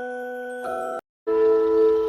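Electronic emergency-alert attention tone: a sustained chime-like chord of several notes cuts off about a second in, and after a short break a second held chord sounds.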